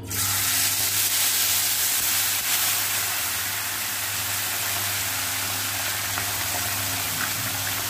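Small masala-coated fish dropped into hot oil in a kadhai, setting off a loud, steady sizzle of deep frying that starts suddenly and eases slightly after about three seconds.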